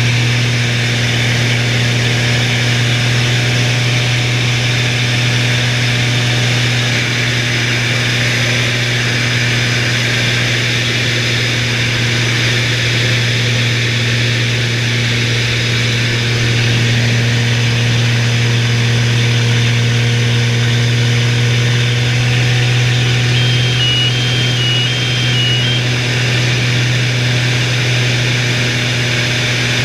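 Extra 300L's six-cylinder Lycoming engine and propeller running steadily at cruise power, a constant low drone heard from inside the cockpit. A short run of high alternating electronic beeps sounds about three quarters of the way through.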